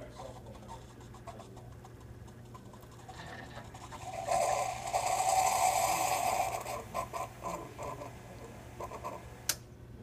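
Keurig single-cup coffee brewer at the end of its brew cycle: a louder rushing, sputtering stretch for about three seconds from about four seconds in as the last coffee is pushed into the mug, then a few crackling spurts as the stream stops, over a steady low hum. A single sharp click near the end.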